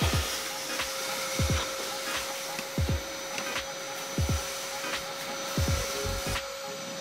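Vacuum cleaner running with a steady whine and hiss, with short low thuds about every second and a half.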